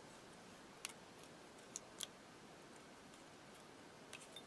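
Near silence with a handful of faint, light clicks as small metal embellishments are handled in a clear plastic bag.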